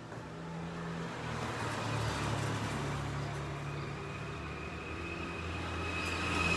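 A road vehicle's engine running with a steady hum that shifts in pitch, growing louder.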